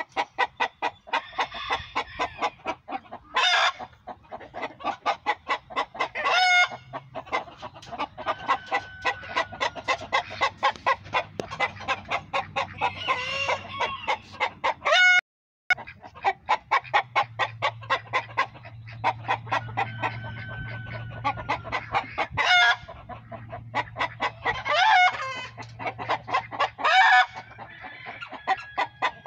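Chickens clucking in a fast, even rhythm, about three to four clucks a second, broken by about six short, loud squawking calls.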